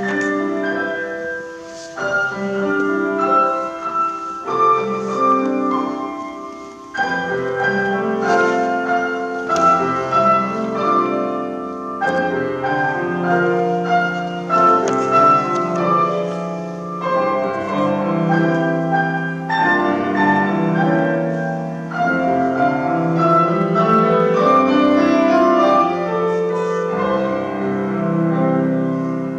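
Solo grand piano playing a classical piece in phrases of held notes and chords, with short pauses between phrases.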